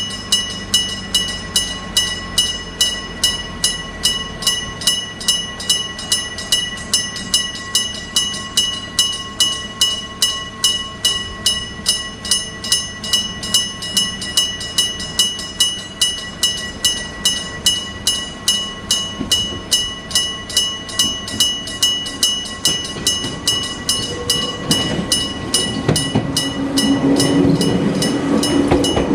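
Japanese electric-bell level-crossing alarm ringing, its hammer striking the bell evenly about two and a half times a second, each strike ringing on. In the last few seconds a train's rumble grows louder as it reaches the crossing.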